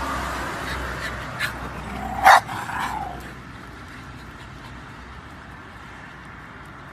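A dog giving one short bark about two seconds in, over a steady background hiss.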